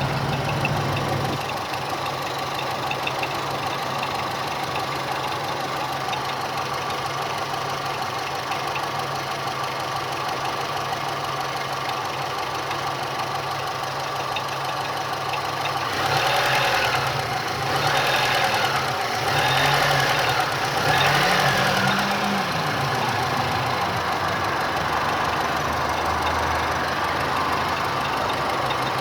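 Great Wall Safe SUV engine running at idle with a knocking sound that the owner asks about as a possible engine knock. A little past the middle the engine speed rises and falls several times, then settles back to idle.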